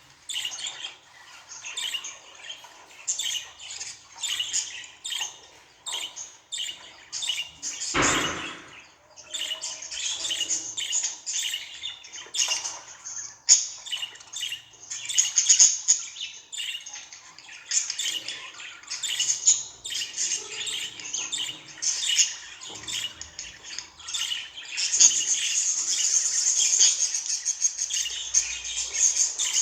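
Budgerigars chirping and chattering in quick, busy runs of short chirps, becoming a denser continuous warble near the end. There is one short thump about eight seconds in.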